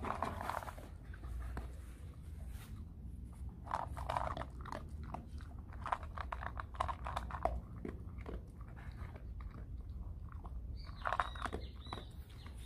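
A German Shepherd dog eating dry kibble from a stainless steel bowl, with irregular crunching and chewing throughout. Near the end there is a brief ringing clink from the metal bowl.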